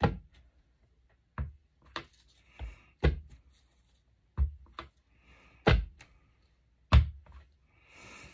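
An irregular series of sharp thunks and taps as craft supplies are handled and set down on a tabletop, about eight in all, with soft rustling between them and a longer rustle near the end.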